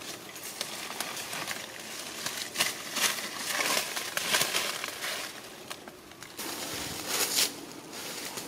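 Dry leaf litter rustling and crackling in uneven bursts as a macaque shifts about in it while eating bananas.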